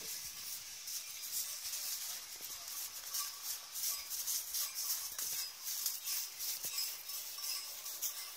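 Sleigh bells on a horse's harness jingling unevenly as the horse pulls an open sleigh.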